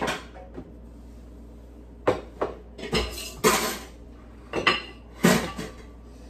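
Kitchen dishes and cutlery clattering as a bowl and a round dish are set down and handled on the counter. About half a dozen sharp knocks and clinks come in three quick clusters from about two seconds in.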